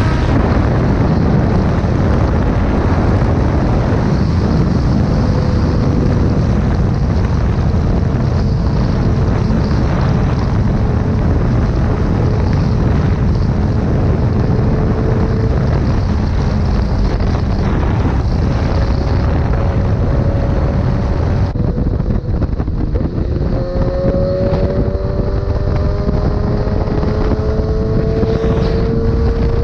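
Motorcycle riding at speed, with heavy wind buffeting on the microphone over a faint engine note. The engine pitch sinks slowly through the middle, then climbs steadily in the last seven seconds as the bike accelerates.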